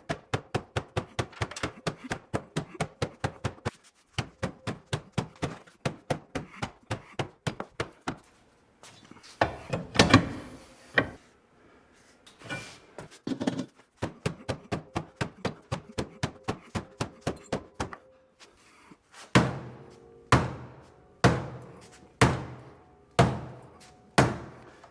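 Sledgehammer beating on the sheet-metal quarter panel of a Honda Civic hatchback: quick runs of about three to four blows a second with short breaks, then slower, heavier strikes about one a second near the end.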